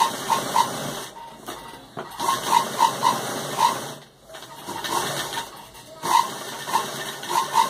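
Sewing machine stitching through a fabric patch in four short runs with brief pauses between them, each run a steady mechanical clatter with rapid clicks.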